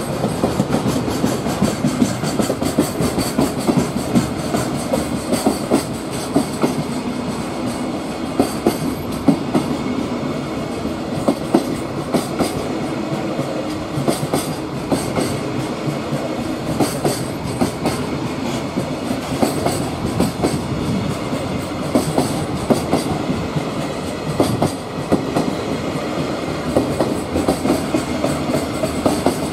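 A long freight train of Koki container flat wagons rolls steadily past. There is a continuous rumble of wheels on rail, with frequent sharp clicks as the wheels cross the rail joints.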